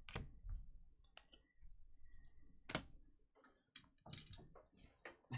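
Trading cards handled and set down on a tabletop: faint, scattered sharp clicks and soft card rustling, with a cluster of clicks about four seconds in.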